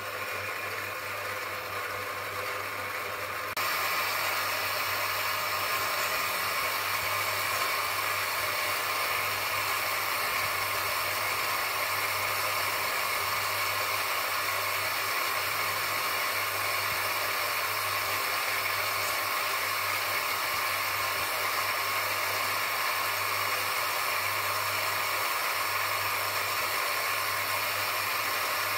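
Electric bench grinder running steadily, a small nagasui agate stone on a stick held against its spinning abrasive wheel for shaping and polishing: a steady motor hum under an even grinding hiss. The sound steps up a little louder about three and a half seconds in.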